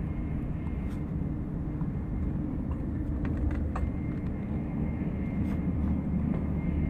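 Steady low rumble of a moving passenger train heard from inside the carriage, with a faint steady high whine. A few light clicks and rustles come from clothing rubbing on the body-worn camera partway through.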